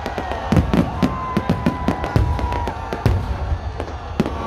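Aerial fireworks display: a dense, irregular run of bangs and crackles as many shells burst overhead.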